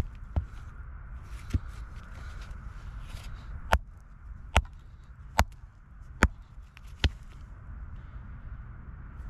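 Hand hammer striking a rock, about eight sharp hits: a few irregular ones, then five evenly spaced a little under a second apart, stopping about seven seconds in.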